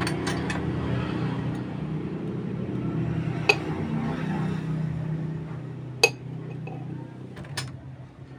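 A few sharp clinks of steel stove parts being handled and set down on the stove's steel top plate, the loudest about six seconds in. Under them runs a steady low hum that slowly fades.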